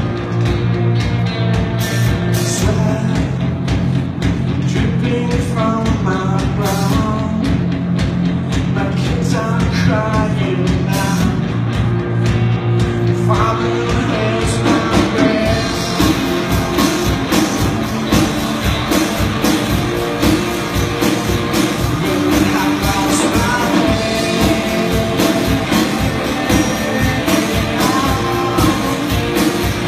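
Live rock band playing: two guitars and a drum kit, with a sung lead vocal. About halfway through the song shifts and the drums open up with steady cymbals, filling out the sound.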